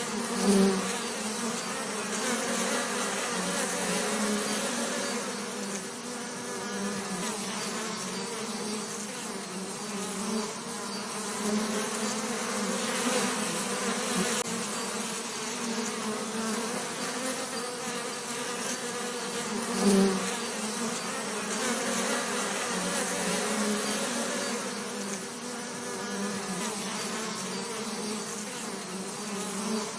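Bees buzzing steadily, a continuous low drone that swells briefly louder twice, as if a bee passes close to the microphone.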